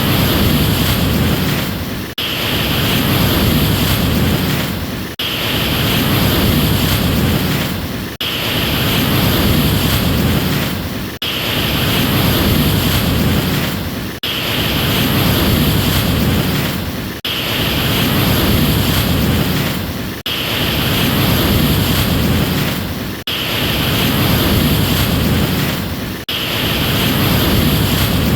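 Ocean surf: a steady rushing wash of waves that swells and dips sharply for a moment about every three seconds, in an evenly repeating cycle.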